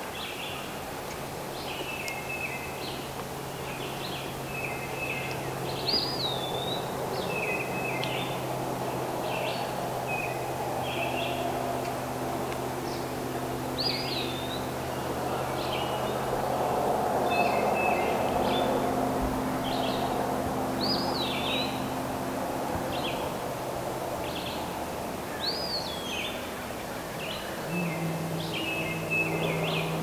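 Songbirds singing in spring woodland: short whistled phrases that swoop up and fall, repeated every few seconds, with lower chirps between. A steady low hum runs underneath.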